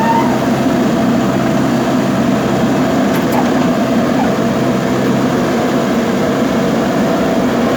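JCB backhoe loader's diesel engine running at a steady speed.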